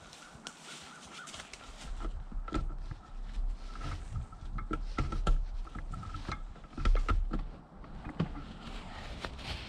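Rustling and handling of camping gear at a hammock tent, with scattered clicks, knocks and low thumps. The loudest thumps come about five and seven seconds in.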